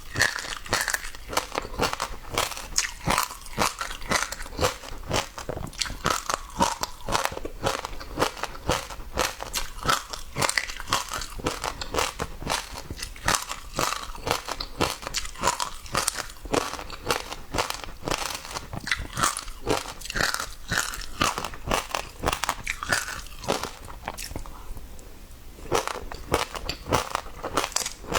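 Passionfruit seeds being chewed, cracking and popping in a rapid, uneven run of crisp clicks, with a brief lull shortly before the end.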